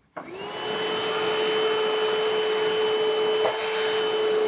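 Small electric vacuum switched on just after the start, its motor ramping up within a second and then running at a steady high whine.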